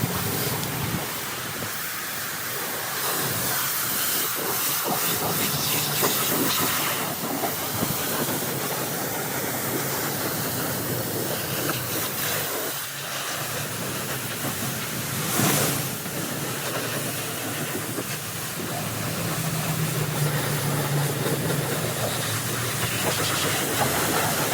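Pressure washer jet rinsing a car's bodywork: a steady hiss of spray, swelling and easing as the jet moves.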